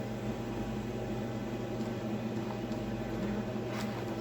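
Steady mechanical hum with several constant low tones, with a faint click a little before the end.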